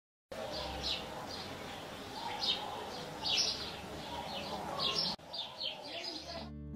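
Small birds chirping: many short, bright calls repeating every half second or so over a steady low background murmur.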